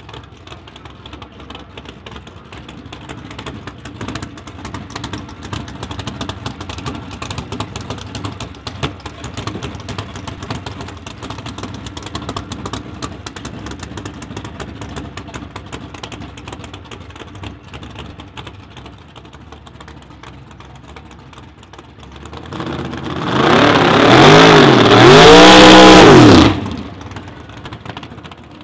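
Hemi V8 engine of a Pro Stock-style Dodge Stratus drag car running at low speed with a rough, crackling idle. About 23 seconds in it is revved hard twice, the pitch rising, falling and rising again in a burnout, then it cuts off sharply.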